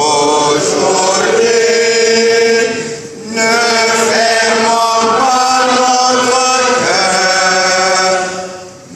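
A voice singing a liturgical chant in two long phrases, with a short break about three seconds in and a fade near the end. This is a sung psalm, as follows the first reading at Mass.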